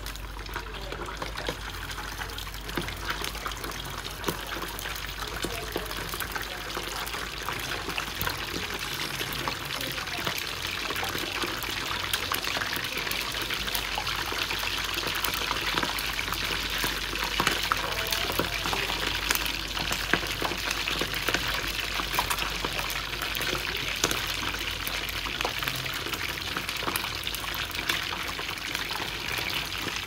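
A whole Japanese char (iwana) deep-frying in hot oil: a dense sizzle full of fine crackling that grows louder over the first dozen seconds after the fish is lowered in, then holds steady. The sizzle is the moisture in the fish boiling off in the oil.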